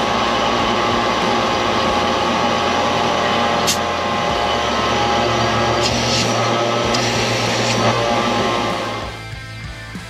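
Fieldpiece vacuum pump running steadily, pulling a vacuum on an HVAC system's refrigerant lines, with a single click a little past a third of the way in. About nine seconds in, the pump noise drops away and background music is left.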